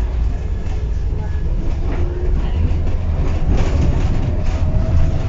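Inside a Tatra KT4D tram under way: a steady low rumble of wheels on rails and running gear, with a short clack about three and a half seconds in.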